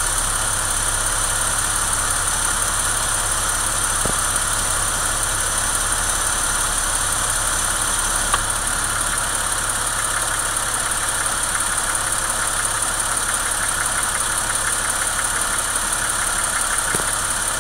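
2001 Porsche Boxster 2.7's flat-six engine idling steadily, with a steady high-pitched hiss above the engine note. This is the strange noise whose cause the owner does not know.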